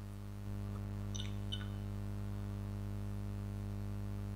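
Steady low electrical hum, stepping up slightly about half a second in, with two faint high ticks a little after one second.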